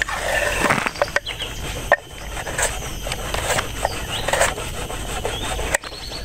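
Knife blade shaving and chopping a block of palm sugar against a wooden board: irregular scraping strokes with short knocks of the blade on the wood.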